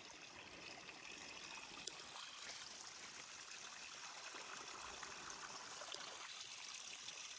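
A small stream of water running and trickling over rocks and gravel, a steady rush.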